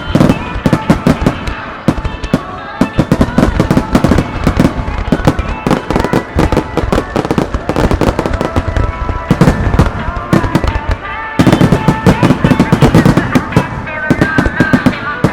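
Star mine fireworks barrage: shells bursting in rapid, overlapping succession, many loud bangs a second with a short lull about eleven seconds in.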